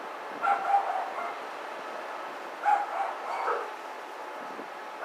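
A dog yapping in short bursts, about half a second in, again near the middle and once more at the end, over a steady hiss.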